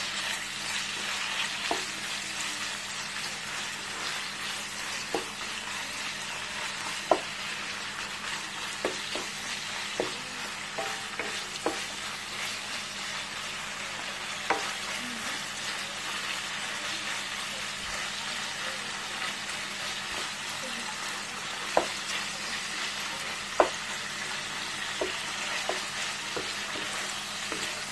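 Strips of fatty pork belly sizzling steadily in hot oil in a nonstick pan as their fat renders out. A wooden spatula stirs them, with a few sharp taps against the pan.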